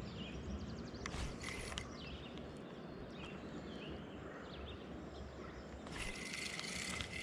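Streamside ambience: a steady rush of river water under repeated short songbird chirps, with two brief louder hissing bursts, about a second in and near the end.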